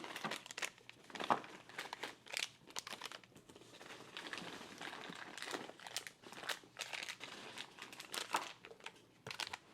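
Packing peanuts and packaging material rustling and crinkling in irregular bursts as hands dig through a shipping box to lift out parts.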